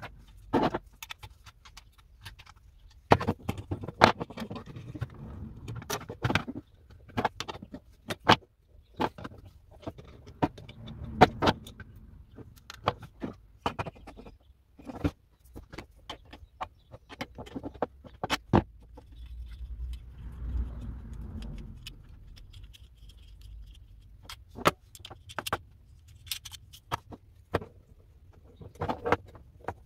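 Irregular metallic clicks and clinks of a vintage battery cell tester being taken apart by hand, its steel prong brackets and frame knocking together as they are handled.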